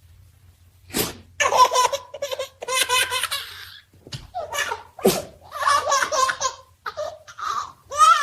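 A puppy sneezes sharply about a second in and again about five seconds in, and a baby laughs in repeated bursts after each sneeze.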